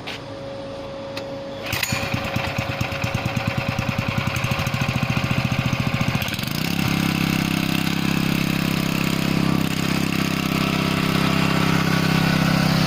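Small gasoline engine of a hydraulic pump starting up about two seconds in, running with a fast uneven pulsing at low speed, then speeding up around six seconds in to a steady, faster run.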